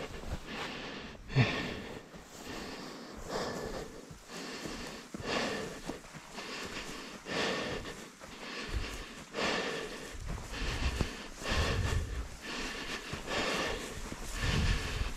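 A person walking through dry grass and over loose tilled soil, the steps swishing about once a second with a few dull thuds.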